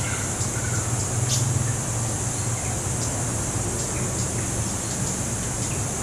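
A few short, high chirps of a small wild songbird, the cit keres (cabean, a flowerpecker), over a steady low hum and a steady high hiss.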